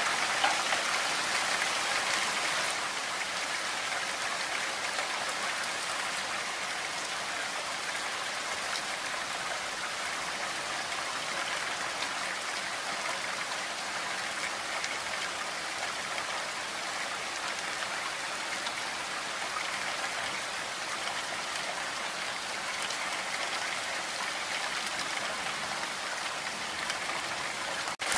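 Heavy rain falling steadily, a dense even hiss of countless drops.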